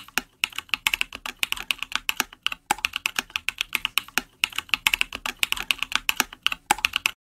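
Computer keyboard typing sound effect: a rapid run of key clicks with two short breaks, stopping shortly before the end as the typed-out title finishes.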